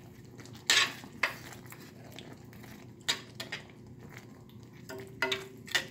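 Metal spoon stirring thick caldereta sauce in a skillet, knocking and scraping against the pan in a few sharp clinks. The loudest clink comes about a second in, and more come in a cluster mid-way and twice near the end.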